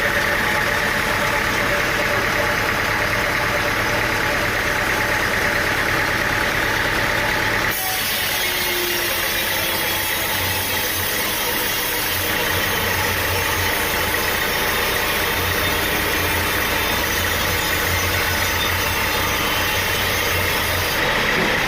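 An engine running steadily at a constant speed. The sound changes abruptly about eight seconds in, as at a cut to another shot of running machinery.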